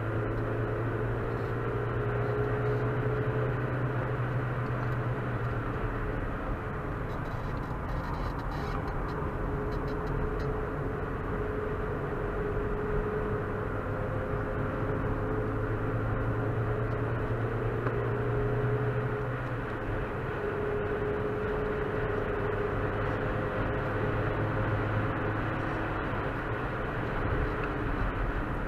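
Opel Astra 1.4's four-cylinder petrol engine running at speed, heard from inside the cabin over steady tyre and wind noise. The engine note holds level for long stretches and drops away briefly about six seconds in and again about two-thirds of the way through.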